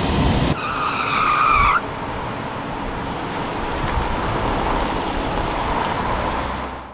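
Tyres squeal sharply for about a second, as in a skidding turn. Then a vehicle's steady road and engine noise runs on and fades out at the end.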